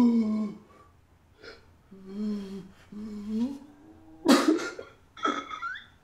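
A man crying: a few short wavering cries in the first half, then two sharp, breathy sobs near the end.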